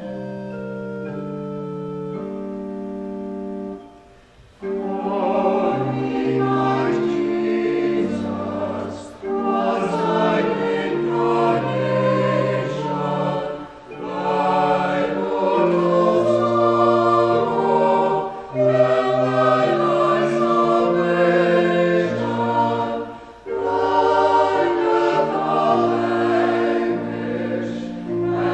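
A pipe organ plays held chords for about four seconds. Then a small mixed choir of men and women comes in, singing a slow hymn with the organ in phrases of four to five seconds, each separated by a brief breath.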